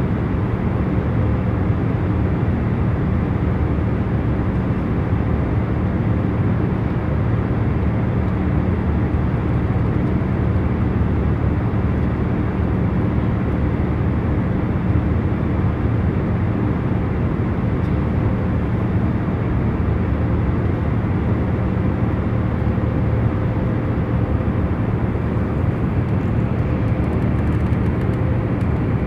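Jet airliner cabin noise in cruising flight: a steady, even rumble and hiss, heaviest in the low end, with a few faint constant hums running through it.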